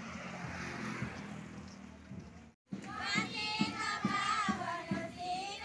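A steady noisy hiss, then, after a sudden break, a group of children singing together in unison over a steady beat of about two a second.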